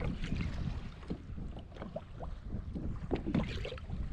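Wind rumbling on the microphone, with small waves slapping and splashing irregularly against the kayak hull.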